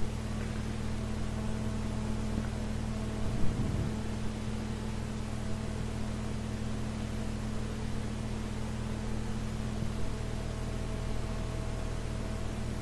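Steady hiss with a low mains hum from an old recording's background noise, with one brief faint sound about three and a half seconds in.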